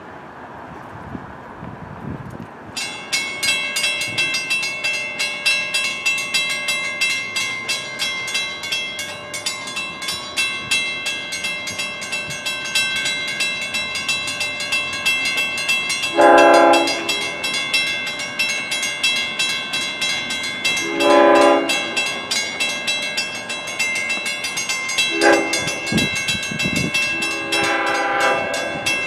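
Long Island Rail Road train horn sounding the grade-crossing signal, long, long, short, long, the last blast running to the end, over a bell that starts ringing rapidly a few seconds in and keeps going.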